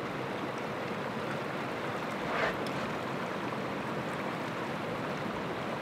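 Steady rush of fast water pouring over and below a dam spillway, with one brief louder swell about two and a half seconds in.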